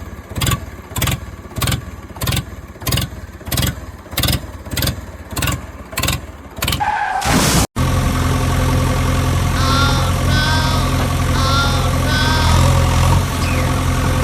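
Vehicle engine sounds: a slow, even chugging about one and a half beats a second, then after an abrupt cut about halfway in, a steady engine idle with a few short chirps over it.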